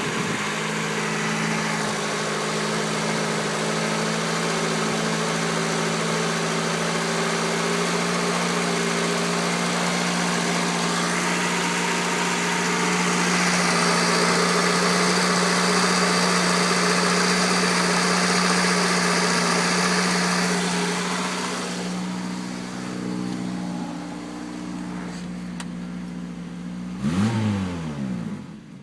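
1989 Honda Accord's four-cylinder engine idling, a rough idle that persists after an oil change and a valve cover gasket replacement, with the car still smoking. The running grows louder and hissier through the middle and gives a brief louder burst with a sweeping pitch near the end.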